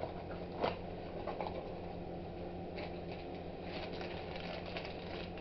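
Light handling noises from unpacking the box: a few soft clicks and rustles of packaging, more of them in the second half, over a steady low electrical hum.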